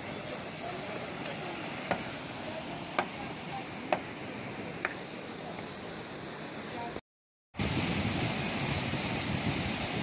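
River water rushing out through a culvert in a steady roar of white water, with four sharp knocks in the first five seconds. It breaks off for half a second about seven seconds in, then comes back louder.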